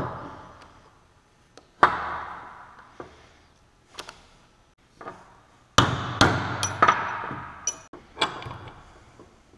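Irregular sharp metal knocks and clanks, each ringing out briefly, about a dozen in all, loudest about 2 s in and in a quick cluster in the second half. They come from a screwdriver working the bent-up locking tab on a Jaguar XJ6 IRS output shaft nut, and from the steel shaft assembly and a large adjustable wrench knocking on a steel workbench.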